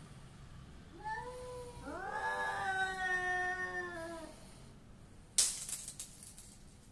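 Street cats in a standoff, one yowling a territorial threat: a short call about a second in, then a long, drawn-out caterwaul that rises in pitch and is held for about two and a half seconds. Later comes a sudden sharp burst of noise, the loudest sound, which fades quickly.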